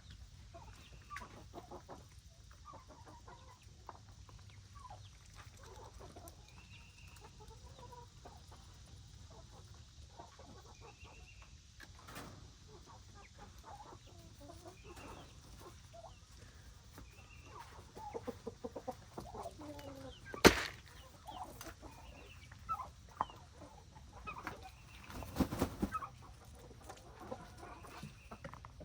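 Chickens clucking and calling in scattered short bursts. A sharp knock about two-thirds of the way in is the loudest sound, and a brief rustling burst follows a few seconds later.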